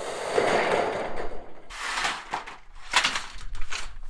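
Metal roofing sheets scraping and rattling as they are handled and slid onto a trailer, followed by a run of sharp clanks in the second half.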